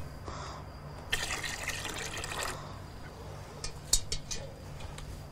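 Liquid poured into a metal pail for about a second and a half, then a few light knocks near the end.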